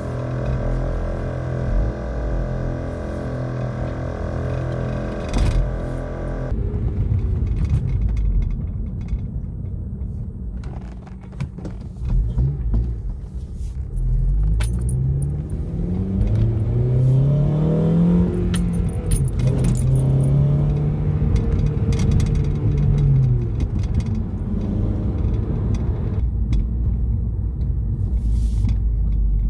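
Rhythmic music for the first few seconds, cutting off suddenly. Then a 2008 Honda Civic Si's 2.0-litre four-cylinder engine is heard on the road with a low rumble: it accelerates with its pitch rising in steps around the middle, holds a steady note, then eases off.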